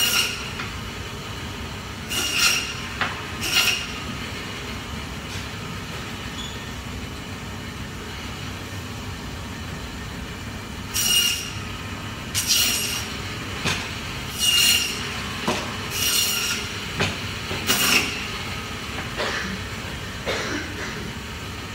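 Omega Foodtech meat bandsaw running steadily, its blade screeching briefly each time it cuts through lamb bone. A few cuts come near the start, then after a pause of several seconds a quick run of cuts follows.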